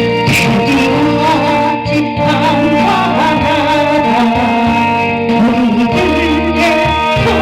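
Korean Christian hymn music: sustained accompaniment chords under a melody line that wavers with vibrato.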